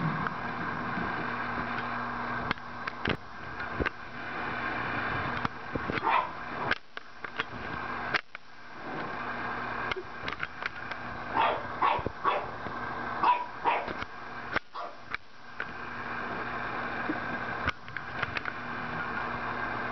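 Bulldog puppy giving short, high yips and barks, once about six seconds in and then several in a row in the middle, over a steady hum, with scattered knocks from a plastic hamster ball rolling and bumping on a hardwood floor.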